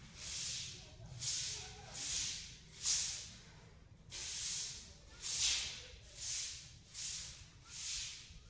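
A short hand broom sweeping a wet floor in quick strokes, making a swish about once a second, nine in all.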